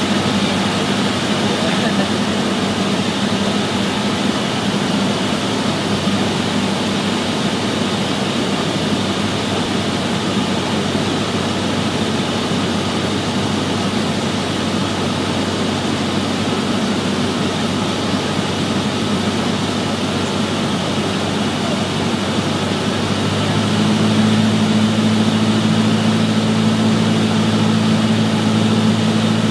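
Light single-engine propeller plane's engine and propeller droning steadily, heard inside the cabin on final approach. About 23 seconds in the engine note grows louder and fuller.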